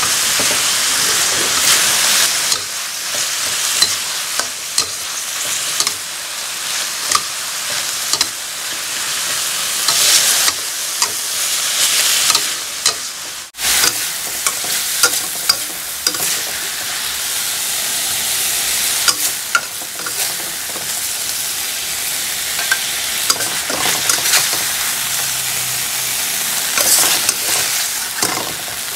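Chicken breast and vegetables sizzling as they are stir-fried in a metal wok, with a steady frying hiss. A metal spatula scrapes and clicks against the pan over and over.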